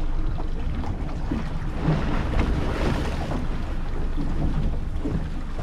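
Small fishing boat at sea: a steady low engine rumble, with wind buffeting the microphone and the sound of waves.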